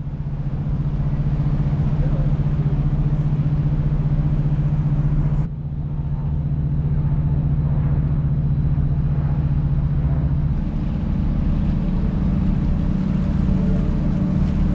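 Passenger boat's engine running with a steady low drone, which shifts abruptly twice, about five and ten seconds in.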